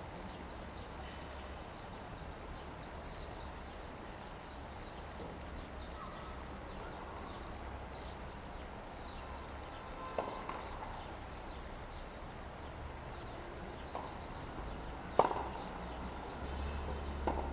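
Tennis balls struck by racket strings: sharp single pops, the loudest about fifteen seconds in, a softer one about ten seconds in and a faint one just before the loudest. A steady low rumble runs underneath.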